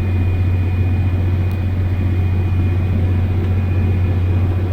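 Tractor engine running under load, a steady low drone heard from inside the cab, with a faint high whine running through it.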